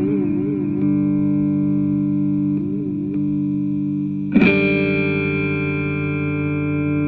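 Electric guitar played through an ADA Pitchtraq pitch-shifter effect: held chords with a regular warbling pitch modulation that stops about a second in and briefly returns. A new chord is struck about four and a half seconds in and rings out steadily.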